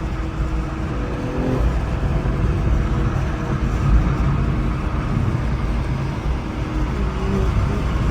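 BMW M340 driving: a steady low rumble of engine and road noise, with faint engine tones that shift in pitch now and then.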